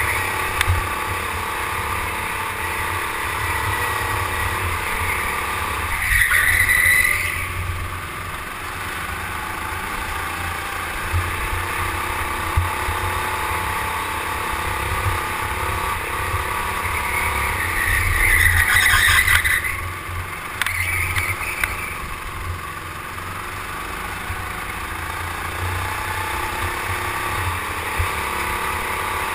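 Go-kart engine running under way, heard from the kart itself, with two louder stretches of a second or two, about six and eighteen seconds in.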